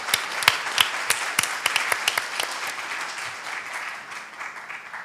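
Audience applauding, a dense patter of hand claps that gradually dies away toward the end.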